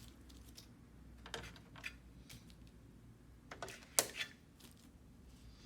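Scattered light clicks and short rattles of small parts being handled while working inside a flat-screen TV, with the sharpest click about four seconds in.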